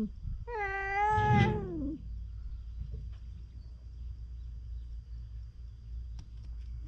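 A stray cat meows once, a long call starting about half a second in and lasting over a second, its pitch wavering and then falling away at the end.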